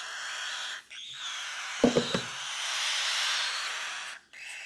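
Cockatiel chick hissing, a breathy hiss in three long stretches with short breaks between them, the chick's defensive reaction to being handled. Two sharp knocks come about two seconds in.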